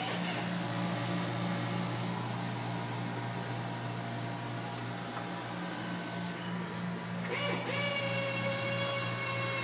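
Steady low electric hum of a running machine. About seven seconds in, a higher motor whine joins it, sliding up briefly and then holding steady.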